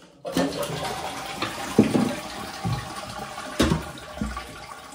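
Toilet flushing: water rushing through the cistern and bowl, with two knocks, as a newly fitted side-entry fill valve is tested for leaks.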